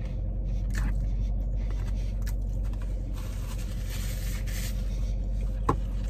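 Paper napkin rubbed and wiped against the face for about a second and a half, a little after three seconds in, with a few light clicks and knocks from a plastic fork and takeout box, the sharpest near the end. A steady low hum runs underneath.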